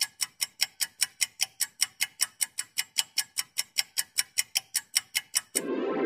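Countdown clock-tick sound effect, fast and even at about five ticks a second. About five and a half seconds in the ticking stops and electronic music begins.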